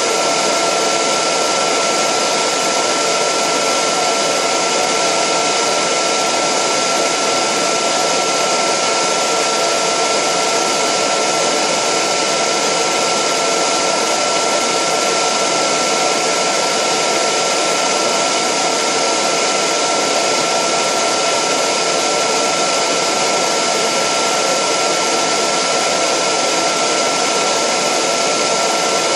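Degritter ultrasonic record cleaning machine in its drying cycle, its fans blowing air over the record at their maximum setting: a loud, steady rush of air with a steady high whine on top, about 70 dB, the loudest stage of the machine's cycle.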